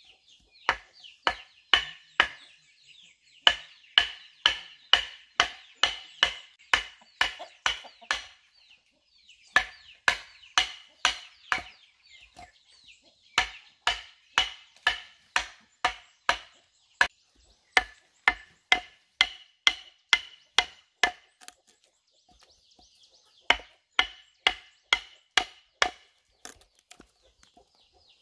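A machete chopping down onto a wooden chopping block: steady, sharp strikes at about two a second, in runs broken by short pauses.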